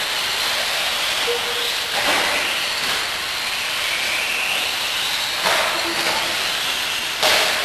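Electric radio-controlled off-road buggies racing: a steady hiss with the rising and falling whine of their motors, and short sharp bursts of noise about two, five and a half, and seven seconds in.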